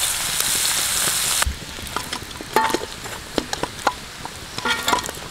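Dried ribbon fish pieces frying in oil on a dosa griddle: a dense sizzle that cuts off suddenly about a second and a half in. After it comes a quieter stretch with scattered clicks and a few short chirps.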